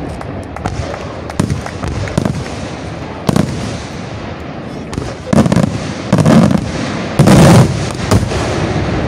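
Aerial firework shells launching and bursting. Scattered sharp reports come in the first few seconds, then heavier booms follow from about five seconds in, the loudest around seven and a half seconds.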